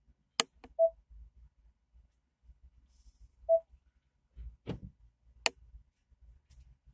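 Two short electronic beeps about three seconds apart, among a few sharp clicks, over a faint low rumble.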